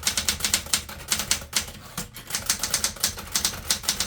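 Smith Corona Galaxie 12 manual portable typewriter being typed on: a quick, uneven run of key strikes, several a second, each type slug clacking against the platen.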